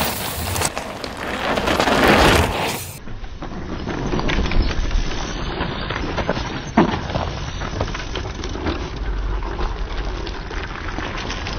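Mountain bike descending a dry dirt and rock trail: tyres crunching and rolling over dirt and stones, the bike rattling over bumps, with a sharp knock about seven seconds in.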